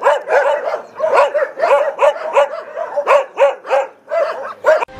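Repeated dog barking, about three barks a second, with a brief pause about four seconds in.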